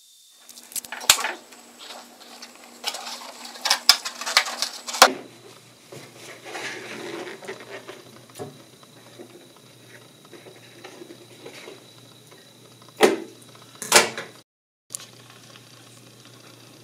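Hands handling a long latex balloon full of hydrogen gas as it is taken off the filling flask and held up: rubbing and fiddling noises with sharp clicks and knocks. The knocks bunch about four to five seconds in, with two louder ones near the end.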